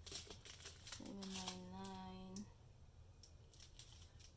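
Small plastic bags of diamond-painting drills crinkling and rustling as they are handled, with a short held hum from a person's voice about a second in. After that the crinkling thins to faint scattered ticks.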